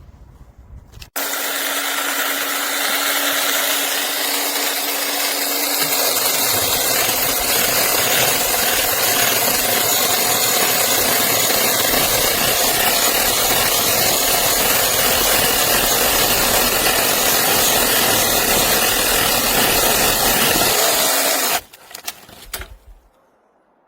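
Cordless 6-inch mini electric chainsaw (Tietoc) starting with a steady whine. About five seconds later the chain bites into a wooden branch, and it saws continuously for about fifteen seconds before cutting off abruptly.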